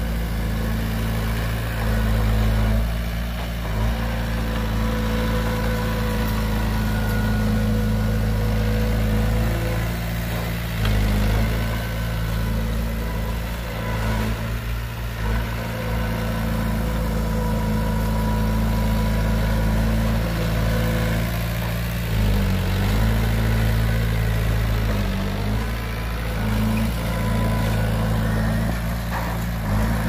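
Heavy diesel engine of earthmoving machinery running steadily, its pitch dipping briefly a few times as it takes load.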